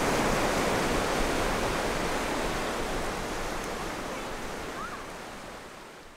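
Surf washing onto a beach, a steady rushing noise that fades away through the second half.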